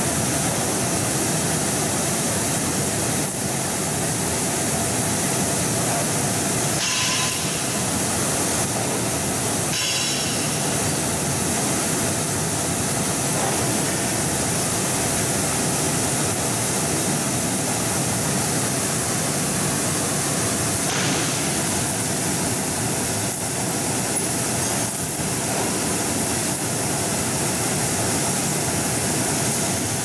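Bubble-type fruit and vegetable washing machine running, air bubbling up through the water in its stainless steel tank with a steady churning rush.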